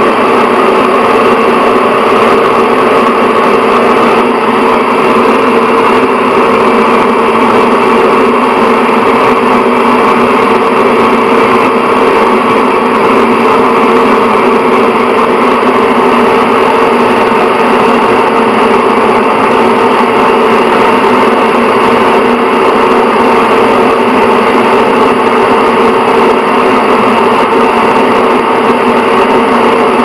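Bathroom exhaust fan running steadily: an even rush of moving air with a constant mid-pitched hum.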